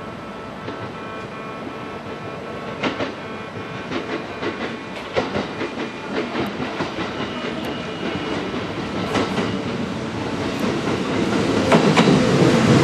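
Kintetsu 30000 series Vista EX limited express train arriving at a station platform: its wheels click over rail joints, more and more often, and the running noise grows louder as the train draws in alongside near the end.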